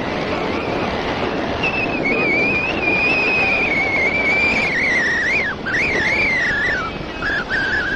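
Steady road and wind noise of a vehicle travelling on a highway. From about one and a half seconds in, a single high, wavering, whistle-like tone rises and falls over it.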